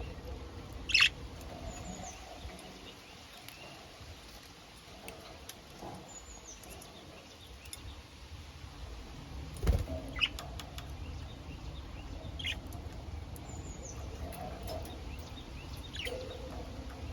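Pet budgerigars giving short, scattered chirps a few seconds apart. There is one louder thump about ten seconds in.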